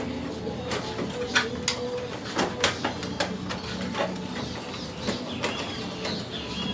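Irregular clicks and knocks of wiring and plastic parts being handled inside an air conditioner during reassembly.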